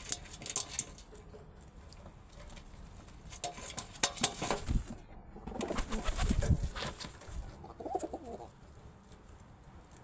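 Pigeons squabbling on an outstretched hand: bursts of wing flapping around four and six seconds in as one lands and they jostle, followed by a short coo near the end.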